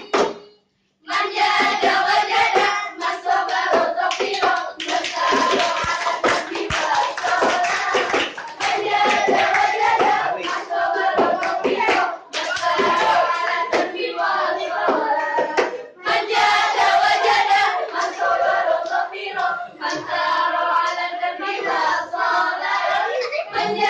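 A group of girls singing together in unison, with hand claps mixed into the singing. The singing starts about a second in, after a short gap, and goes on with brief breaks between phrases.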